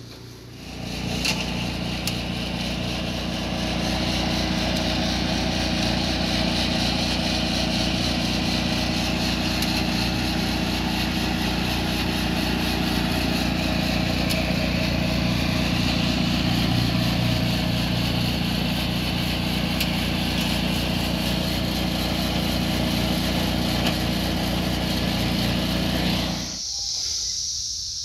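Small petrol engine of a chipper-shredder running steadily while compost material is fed into its hopper, with scattered faint ticks over the engine hum. It starts about half a second in and cuts off abruptly near the end.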